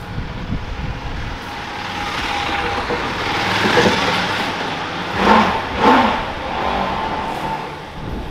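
Buell V-twin motorcycle engine running on the road. It builds up, surges twice in quick succession past the middle, then eases off.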